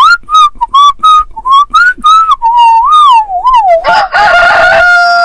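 Whistling: a quick run of short, clipped notes, then a wavering, sliding tone, ending in a rougher held tone with a hiss behind it.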